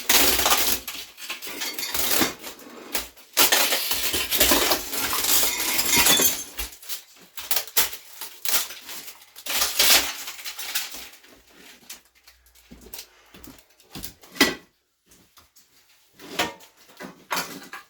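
Hard demolition debris clattering and clinking as it is handled: a dense run of clatter for the first six seconds or so, then scattered separate knocks.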